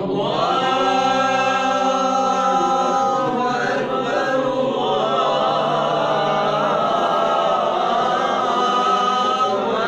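Unaccompanied male voice singing a phrase of the ezan, the Islamic call to prayer, in makam Hicaz: one long held note for the first three seconds or so, then a run of wavering, turning ornaments.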